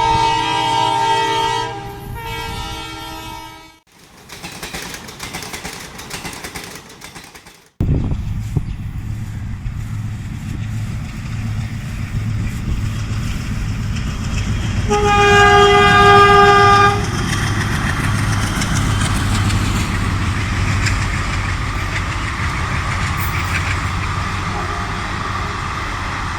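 WDM3A diesel locomotive sounding its multi-tone horn twice, then, after a quieter stretch, its ALCO 16-cylinder diesel engine chugging in abruptly as the train runs past. A third horn blast comes about halfway through, the loudest moment.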